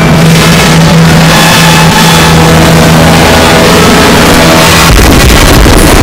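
Loud music with held tones over a steady low note. About five seconds in it changes to a denser, rougher low noise.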